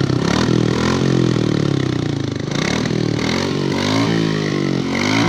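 Royal Enfield Bullet's single-cylinder engine being revved again and again, its pitch rising and falling with each blip of the throttle.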